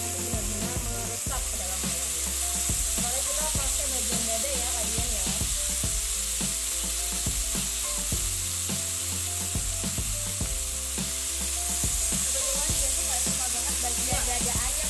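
Marinated chicken breasts sizzling in a hot, flat nonstick frying pan as more pieces are laid in with tongs: a steady frying hiss.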